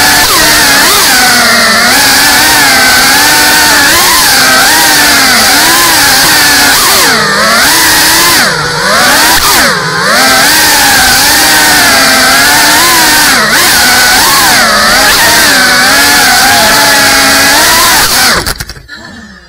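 Whine of a GEPRC CineLog35 cinewhoop's four brushless motors and ducted propellers, the pitch rising and falling continuously with throttle. It dips sharply a few times in the middle and almost cuts out near the end as the throttle is chopped.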